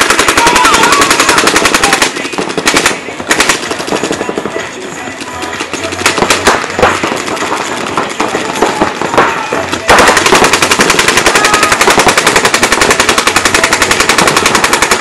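Paintball markers firing in fast streams of many shots a second. The firing thins to scattered shots about two seconds in, then rapid streams start again about two-thirds of the way through.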